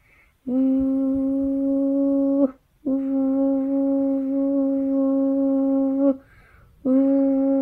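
A person's voice imitating an owl's hoot: long, steady "hoo" calls held at one pitch. Two hoots of about two and three seconds come first, and a third begins near the end.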